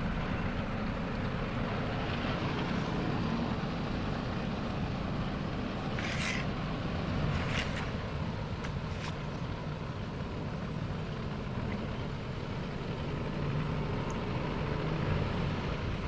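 Tractor-driven wheat thresher running steadily, its tractor engine and spinning threshing drum making an even mechanical rumble while wheat bundles are fed in. A few brief hissing rushes come about six, seven and a half, and nine seconds in.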